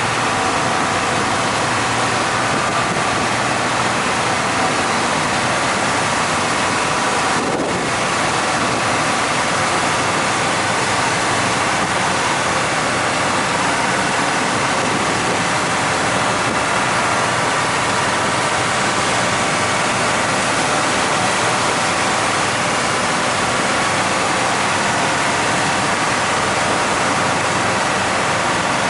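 Slow boat's engine running steadily, under a constant rush of water foaming along the hull and wind on the microphone.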